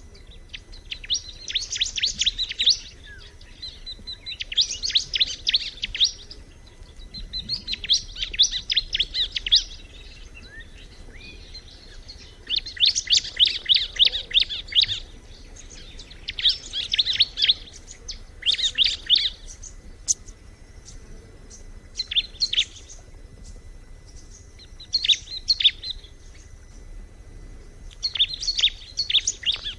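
Ciblek (a prinia) singing: repeated phrases of rapid, high chattering notes, each lasting one to two seconds, with short pauses between them.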